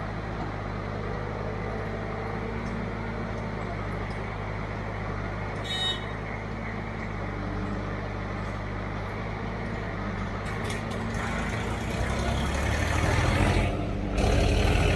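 Diesel engines of a farm tractor and a backhoe loader running steadily. About eleven seconds in, the engine note changes and grows louder as the tractor pulls away under power. A short rattle comes about six seconds in.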